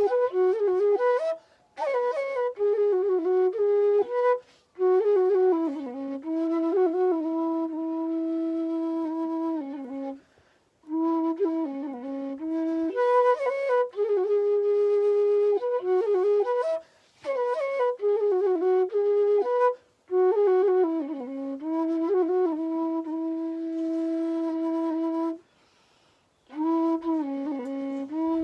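Solo flute playing a Nepali folk song melody in phrases of held notes and quick slides, broken by brief pauses for breath.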